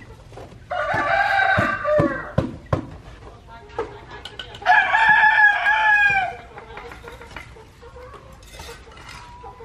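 A rooster crowing twice, each crow about a second and a half long and trailing down in pitch at the end, with a few sharp knocks near the end of the first crow.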